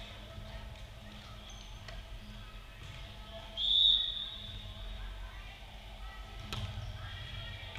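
A referee's whistle gives one short blast about three and a half seconds in, the signal to serve, over the murmur of a large gym. About three seconds later comes a single sharp hit as the volleyball is served.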